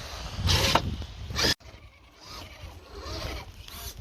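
Small electric motors of radio-controlled crawler trucks whirring in short bursts, with gliding pitch changes as the throttle varies. The sound cuts out abruptly about a second and a half in and comes back quieter.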